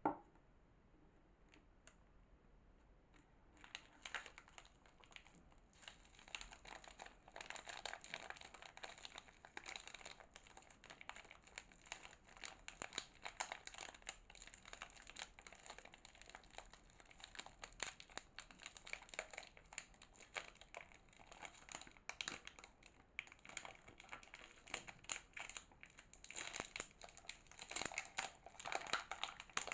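Soap packaging crinkling and tearing as it is unwrapped by hand: a dense run of crackles that starts about three seconds in, after a sharp click at the very start.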